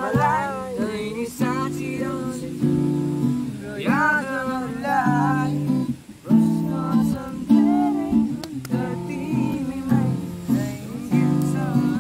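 Acoustic guitar strummed in steady chords, with voices singing a melody over it. The music drops out briefly about halfway through, then resumes.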